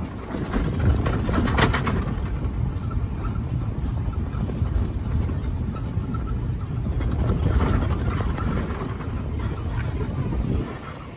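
Low rumbling noise from a golf cart on the move, wind and road noise buffeting the microphone, with louder rushes about a second and a half in and again around eight seconds. It drops off sharply near the end.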